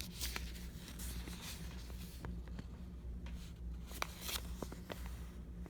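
Faint rustling and crinkling of a folded paper instruction manual being handled, with a few sharp ticks, over a low steady hum.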